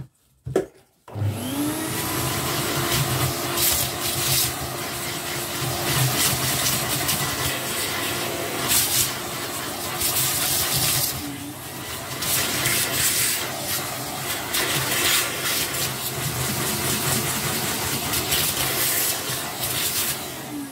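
A separate vacuum cleaner is switched on about a second in, its motor rising in pitch as it spins up. It then runs with a steady rushing of air as its metal wand sucks dust and fluff off a vacuum brush roll, the noise swelling now and then. The motor winds down at the very end.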